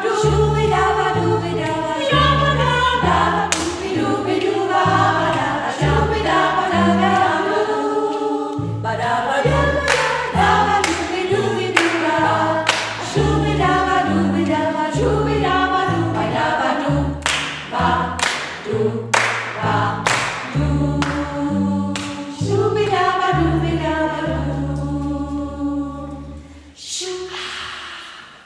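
Women's choir singing in harmony over a double bass playing low stepped notes, with a few sharp percussive clicks. The song ends about a second before the close and the last chord dies away in the room's echo.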